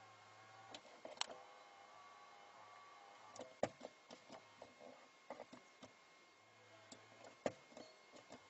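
Faint whirring of an electric side-mirror motor running in short bursts as the exterior mirror is angled, with scattered clicks from the mirror control and mechanism.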